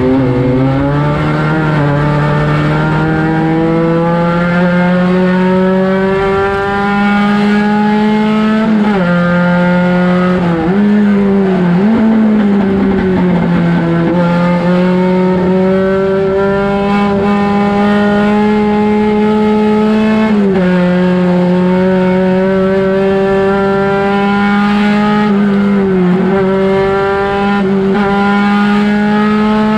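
Volkswagen Gol race car's engine heard from inside the car, running hard at high revs. Its pitch climbs slowly as the car accelerates and drops sharply several times at gear changes and lifts for corners.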